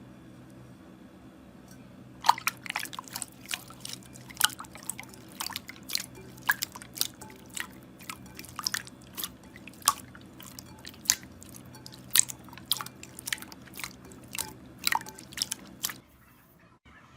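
Slime being pressed and poked by hand, making sharp wet clicks and pops, about two or three a second, starting about two seconds in and stopping shortly before the end.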